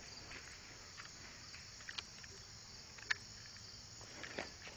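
Faint, steady chirring of insects, with a few short sharp clicks scattered through, the loudest about three seconds in.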